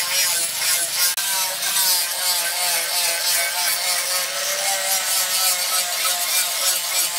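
Handheld DCA angle grinder grinding a steel knife blade cut from a tractor plough disc, its disc scraping hard against the metal. The motor's whine wavers up and down in pitch over a steady rasping hiss.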